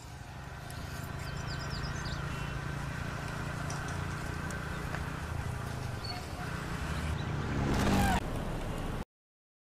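Small motorcycle engine running as the bike approaches, getting steadily louder until it passes close by about eight seconds in. The sound then cuts off abruptly.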